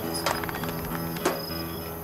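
Film score of slow, held low notes with crickets chirping over it, and a sharp knock about a second and a quarter in.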